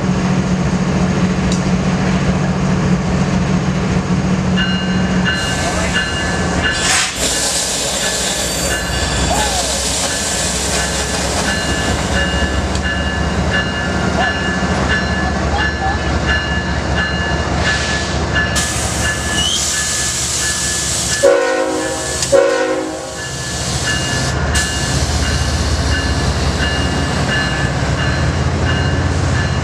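BNSF diesel freight locomotive rumbling slowly past a station platform, with a bell ringing steadily from about five seconds in. About two-thirds of the way through, a train horn sounds two short blasts.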